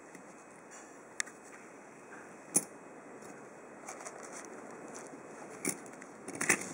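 Metal keys on a keyring clicking and clinking as they are handled: a few short sharp clicks, one about a second in, a louder one at about two and a half seconds, and a quick cluster near the end.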